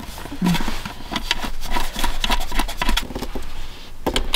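Irregular plastic clicks, knocks and rubbing as a cable is plugged into an EcoFlow River Pro portable power station and its 720 Wh extra battery is handled.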